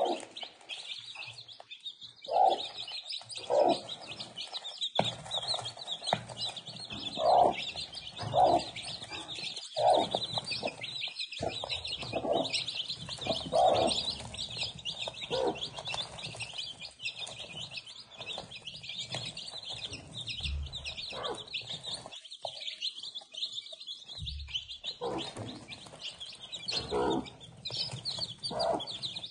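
A brood of young chicks peeping without a break, with a mother hen clucking in short, low calls about every second. The clucks are the loudest sound, and they go quieter for a while midway before picking up again.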